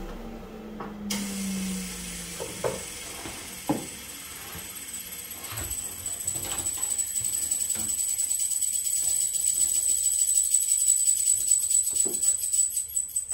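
A miter saw blade winding down with a falling hum, then wooden boards knocking a few times as they are set on the saw station. Under this a high hiss with a thin steady whine grows louder and cuts off abruptly at the end.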